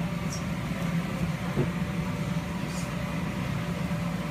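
Steady hum of a bounce house's electric air blower keeping the inflatable up, with a soft thump about a second and a half in.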